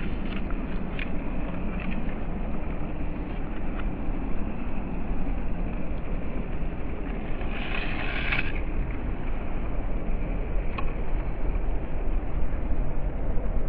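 WPL C24 Toyota Hilux RC crawler's small electric motor and gears whirring as it crawls through tall grass, over a steady low rumble. A louder hissing rush lasts about a second a little past the middle, and a single click comes about eleven seconds in.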